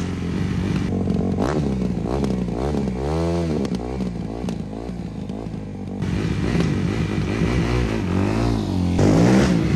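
Suzuki RM-Z250 single-cylinder four-stroke engine running through an aftermarket Akrapovič silencer, idling between several sharp throttle blips that rise and fall in pitch, the biggest about three seconds in and near the end.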